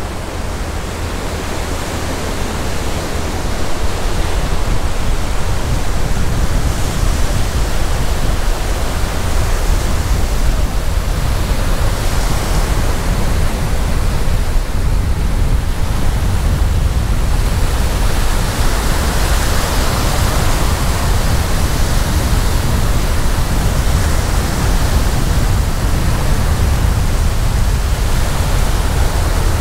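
Loud, steady rushing of wind on the microphone with waves washing on a sandy beach beneath it. It grows a little louder about three and a half seconds in.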